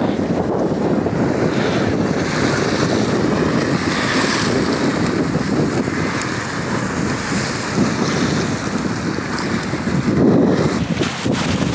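Strong wind buffeting the microphone over the wash of the sea: a loud, steady noise that swells briefly about ten seconds in.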